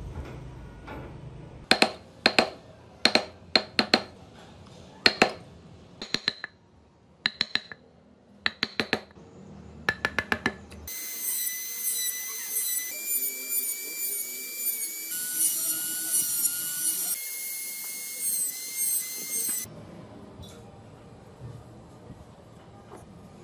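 A run of sharp clicks in small clusters, then a high-pitched whine from a handheld rotary tool cutting tread grooves into a small wooden toy tyre. The whine wavers and steps up and down in pitch several times over about eight seconds as the bit bears on the wood, then cuts off suddenly.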